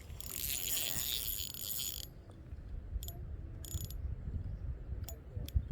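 Fishing reel being cranked to bring in a hooked fish: a steady mechanical whir for about two seconds, then scattered clicks.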